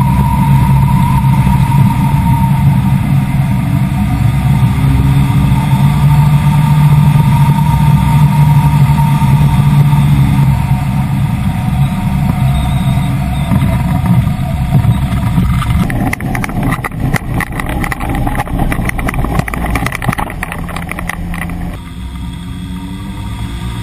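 Ultralight trike's pusher engine and propeller running steadily at low power on the landing approach. About two-thirds of the way through, the sound turns rough and rattly as the trike rolls over bumpy ground. It then drops to a quieter idle while taxiing, with a short rise in revs near the end.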